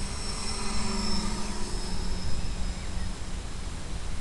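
Electric motors and propellers of a small FPV RC aircraft whining over a steady hiss and rumble. The whine grows louder in the first second, then fades over the next two.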